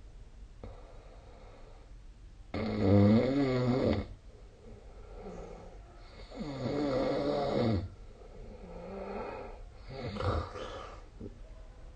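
A sleeping person snoring. There are two loud, wavering snores about four seconds apart, with quieter breaths between and after them.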